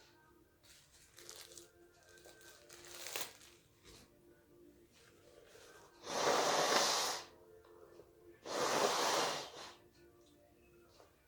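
A person blowing their nose hard into a tissue twice, each blow a long noisy rush of just over a second, the second following the first after about a second's pause. Quieter short noises come a few seconds before the blows.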